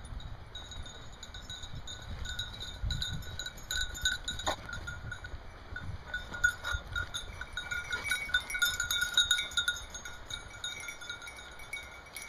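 Bell on a running hunting dog's collar ringing on and off, loudest from about six to ten seconds in, over the low rumble of wind on the microphone.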